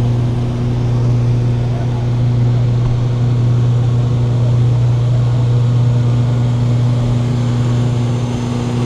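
A steady, loud low mechanical hum like a small engine running at constant speed, with a higher tone in it that cuts out near the end.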